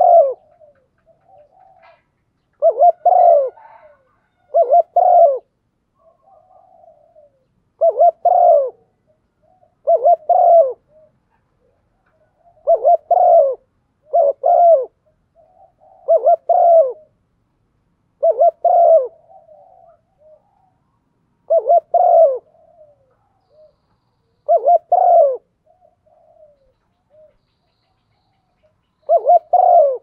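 A female spotted dove cooing: about a dozen short, loud coos repeated every two to three seconds, with soft, quieter coos between them. It is the female's call used to spur a male to coo.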